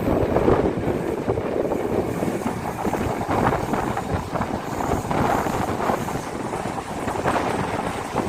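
Yal Devi passenger train running, a steady rumble with wind buffeting the microphone.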